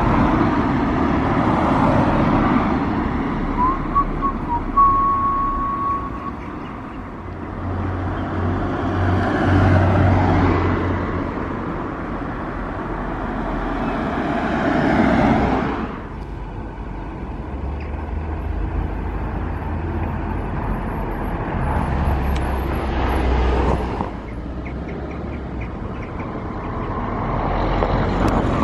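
Street traffic: cars driving past one after another, each swelling up and fading away as it goes by.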